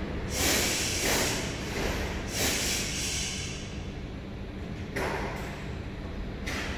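Bombardier metro train with a steady low rumble, broken by several short bursts of loud hissing.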